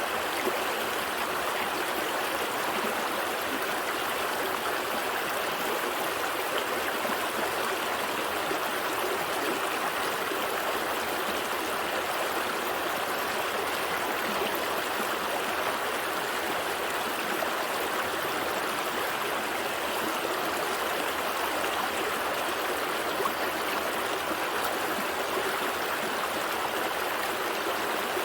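A gentle stream flowing and trickling over rocks, a steady even rush of water with no change.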